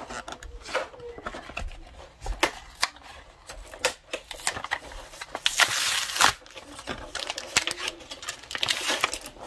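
Hands handling and unwrapping a boxed Pokémon card product: scattered taps and clicks on cardboard, with bursts of crinkling and rustling packaging, loudest around six seconds in and again near the end.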